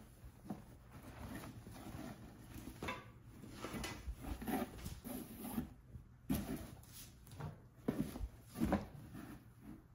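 Handling noise as a varsity jacket is pulled out of a cardboard box packed with shredded paper filler: fabric and paper rustling and rubbing in irregular bursts, with a few sharper bumps in the second half.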